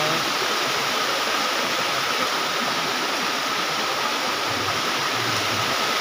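Waterfall water cascading over rocks close by: a steady, even rush.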